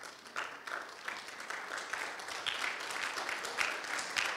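Congregation applauding: many hands clapping steadily.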